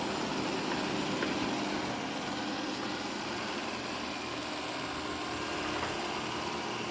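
Shark IQ robot vacuum running on a hardwood floor: a steady motor hum and airy whir with no change in level.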